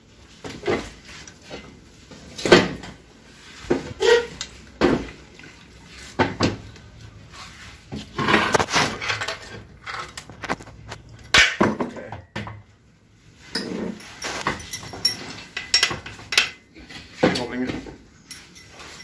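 Metal parts of a Toyota Harrier automatic transmission clinking and clanking as they are handled and set down during teardown: irregular sharp knocks, some with a short metallic ring.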